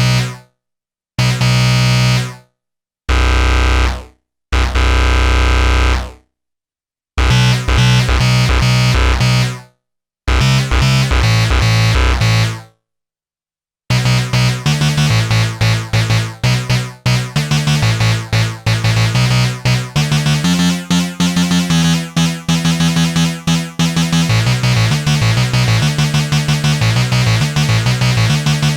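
Arturia MicroBrute analog monophonic synthesizer playing a bright lead patch. It plays several short held notes and phrases with silences between them, then from about halfway an unbroken run of quick notes.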